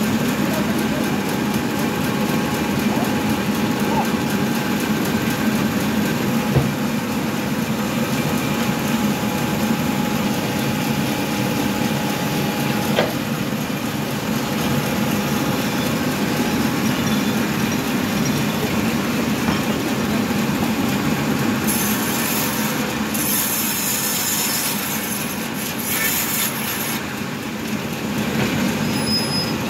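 Bandsaw mill running, its band blade sawing through a log: a steady machine drone with sawing noise. Short bursts of high hiss come in near the end.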